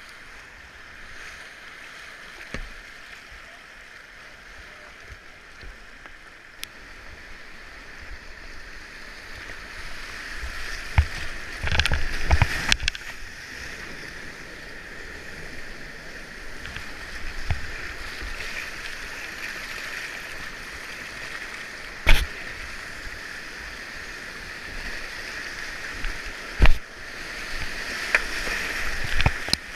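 Whitewater rapids rushing and splashing right at a kayak-mounted camera. A burst of loud knocks and splashes comes about twelve seconds in, with two sharp hits later on.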